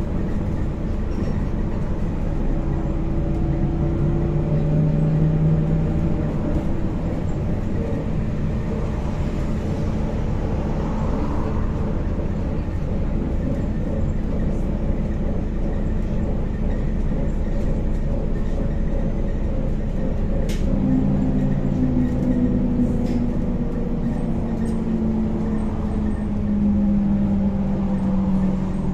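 Interior of a moving MAZ-103T trolleybus: a steady low rumble of tyres on the road, with the electric traction motor's whine shifting in pitch as the bus speeds up and slows, falling slowly near the end. A few sharp clicks about two-thirds of the way through.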